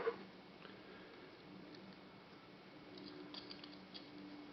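Near silence: faint room tone with a few light ticks about three seconds in and a faint low steady hum near the end.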